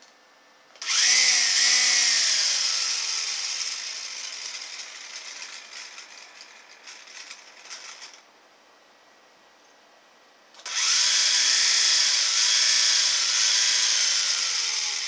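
Toy flying saucer's small electric motor and propellers whirring with a high, wavering whine, in two runs. The first starts suddenly about a second in and dies away over about seven seconds, and the second starts suddenly near the end.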